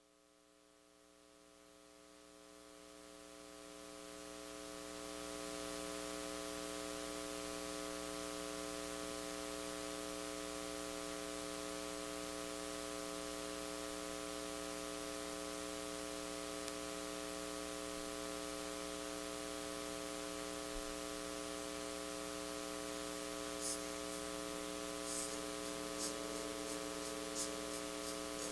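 Steady electrical mains hum with hiss from a church sound system. It fades up over the first few seconds and then holds steady, with a few faint clicks near the end.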